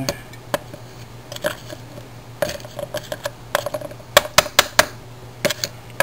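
A small lump of freshly cast aluminium being handled and tapped with a metal tool on a wooden board: scattered sharp clinks and knocks, with a quick run of four or five about four seconds in.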